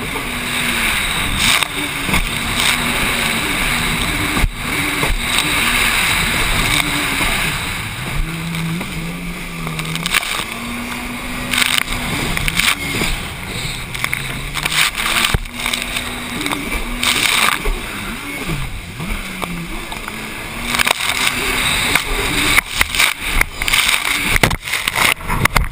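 Racing jet ski engine running hard, its pitch rising and falling with the throttle, under a steady rush of wind and spray. Sharp thumps come as the hull slams over the chop, more often near the end.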